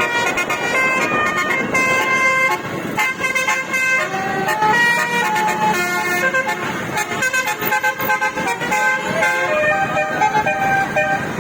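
Basuri (telolet) multi-tone bus horn playing a quick melody, one note after another, over a noisy background.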